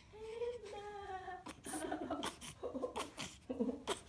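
Young infant vocalising: one long coo over the first second or so, then a run of short, choppy whimpers that turn to fussing, on the verge of crying, near the end.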